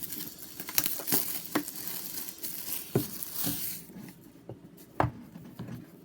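Plastic wrapping crinkling and tearing as a hockey card box is unwrapped, with several sharp clicks from handling. The rustling dies away about four seconds in, and a single sharp knock follows about a second later.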